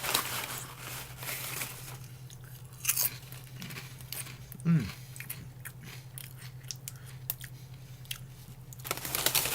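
A person chewing crisp, puffed microwave pork rinds: irregular crunches and bites, coming thick and fast near the end, with a short hummed "mm" partway through.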